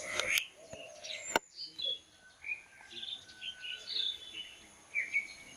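Birds chirping, a scattered series of short high calls, with a sharp click about a second and a half in.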